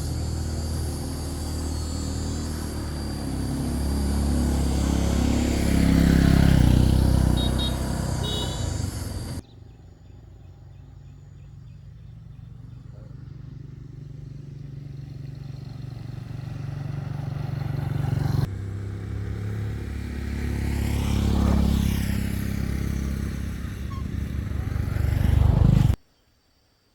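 A motor vehicle's engine driving and passing close by, in three cut-together clips that each end abruptly; the middle clip is much quieter.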